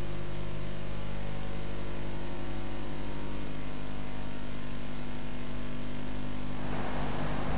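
Steady electrical hum with a high-pitched whine, no speech. A hissy wash of noise rises near the end.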